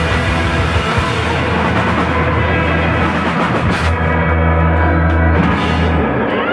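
Live garage rock band playing a loud, noisy closing passage: distorted electric guitars over a held low bass note, with cymbals crashing. The cymbals stop about four seconds in and the bass note cuts off near the end as the song finishes.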